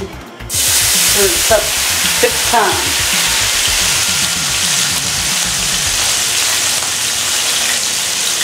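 Hot frying pan sizzling loudly, starting suddenly about half a second in and then going on steadily.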